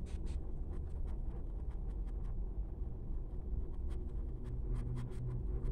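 Soft-bristled paintbrush working almost-dry black paint onto canvas fabric in short, quick strokes for a dry-brush shadow: a string of faint scratchy brushing ticks over a low steady hum.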